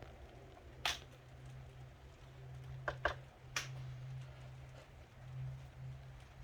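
Sharp plastic clicks and snaps from prising apart the clipped casing of an HP Pavilion ze4200 laptop's screen: one about a second in, then three close together around three seconds in. A steady low hum runs underneath.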